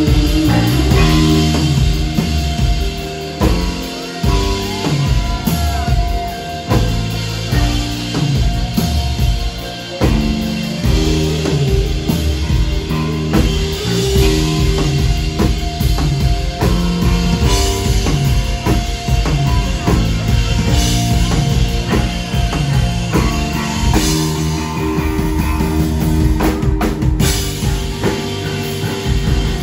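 Live rock band playing: a drum kit keeping a steady beat under electric bass and guitars, loud and continuous.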